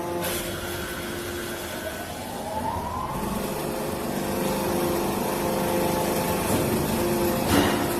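Salt block press machine running with a steady mechanical hum, a rising whine about two to three seconds in, and a sharp knock near the end.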